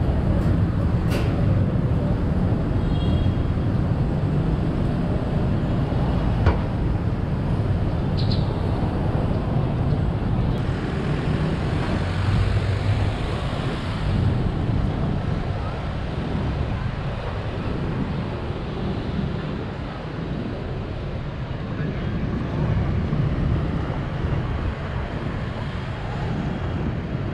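Steady road-traffic noise from vehicles passing on a busy city street, with a few short clicks and high tones over it.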